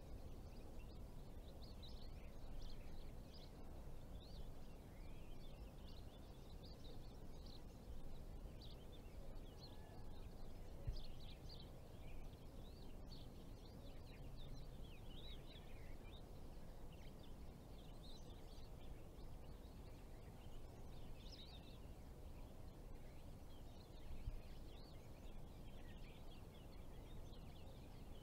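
Faint birdsong: many short chirps and twitters throughout, over a low steady outdoor rumble.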